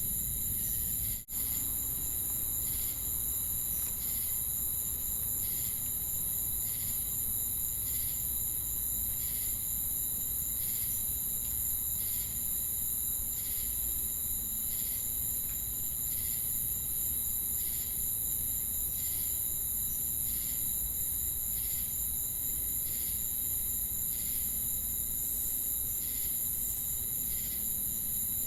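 Insect chorus of crickets and cicadas: a continuous high-pitched trill with steady regular chirps pulsing through it. The whole chorus drops out for an instant about a second in.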